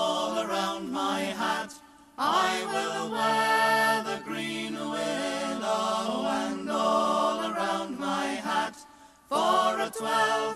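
Folk group singing a chorus a cappella in close harmony, a woman's voice leading with men's voices and no instruments. The singing breaks off briefly twice, about two seconds in and again about nine seconds in.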